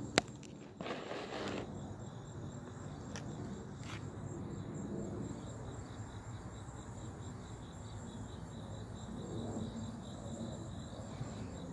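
Crickets chirping in a steady, fast, high-pitched pulsing trill. A sharp click comes just after the start, with a brief rustle about a second in.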